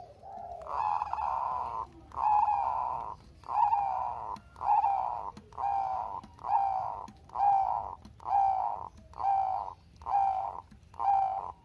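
Perkutut Bangkok (zebra dove) cooing: one longer opening note, then a run of about ten short, evenly spaced coos at roughly one a second.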